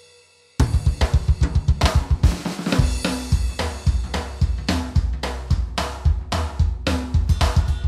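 Background music with a drum kit playing a fast beat, starting abruptly about half a second in after a brief silence.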